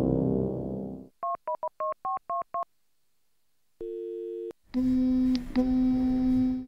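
Music fades out in the first second. Then come seven quick two-tone keypad beeps as a number is dialled on a flip mobile phone. After a pause there is a short steady electronic tone, then a steady buzzing low electronic drone that cuts off at the end.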